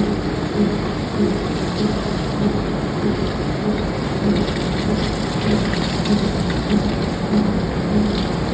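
Heavy industrial machinery running steadily: a dense rushing noise over a low hum that pulses about once a second.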